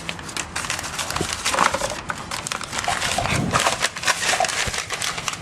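A small plastic packet of brake grease crinkling and crackling as it is handled and torn open, in a quick irregular run of crisp clicks.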